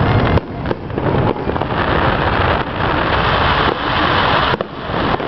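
Aerial fireworks display: a few sharp reports in the first second and a half and another just before the end, over a dense, steady crackling hiss.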